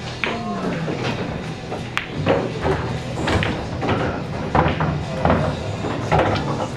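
Sharp clicks of pool balls striking, one clean crack about two seconds in, over background voices and music in a bar.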